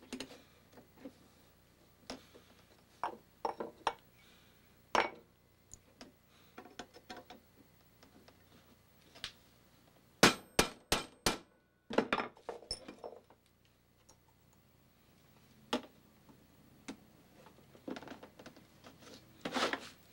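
Small metal clicks and clinks of screw fasteners and hand tools as wooden scales are fitted onto a machete handle. A run of about five quick sharp taps comes a little past halfway, and more scattered taps follow near the end.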